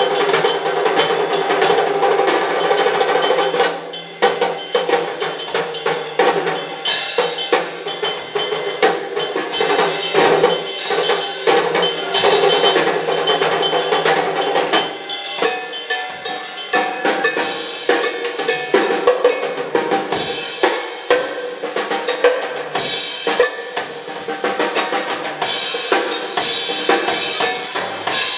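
Live rock drum solo on a full drum kit: rapid, dense strokes on snare and drums with kick-drum hits, continuing without a break.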